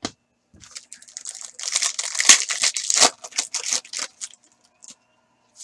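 A foil trading-card pack wrapper being torn open and crinkled, a dense run of crackling and tearing that is loudest in the middle, after a sharp click at the start.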